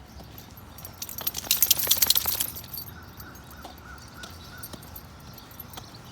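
A short jangling rattle of many quick metallic clicks, lasting about a second and a half, starting about a second in.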